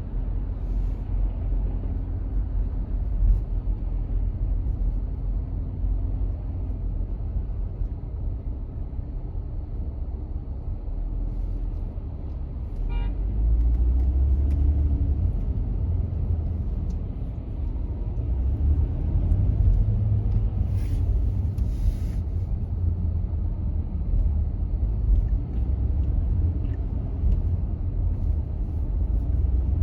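A car driving in city traffic, with a steady low rumble of road and engine noise that swells a little now and then. A brief short tone sounds about halfway through, and a few faint high-pitched sounds come a little later.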